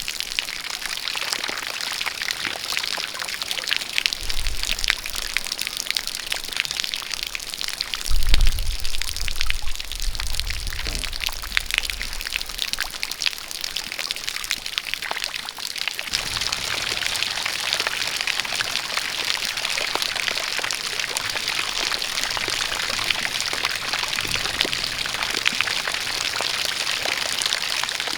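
Steady rain falling with water pouring from a spout, a constant dense hiss. A brief low rumble is heard about eight seconds in, and about halfway through the hiss turns denser and more even.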